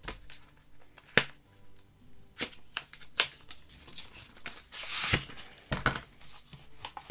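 Handling of an eyeshadow palette: several sharp clicks and taps, then a brief scraping rustle about five seconds in.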